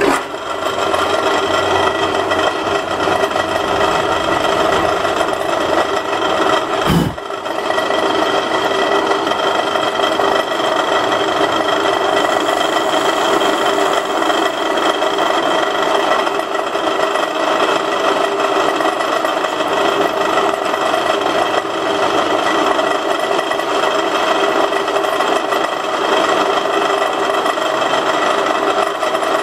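Bench drill press running steadily, spinning an M6 threaded rod down onto a stationary 3 mm drill bit to bore out its centre: a motor hum with a rasping metal-cutting sound. There is a brief knock and dip about seven seconds in.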